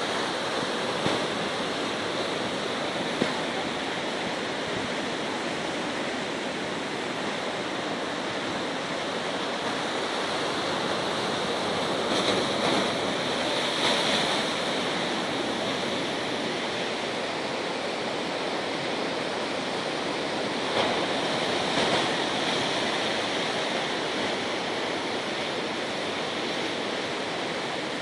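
Sea surf washing steadily, swelling louder twice, once a little before halfway and again about three quarters through.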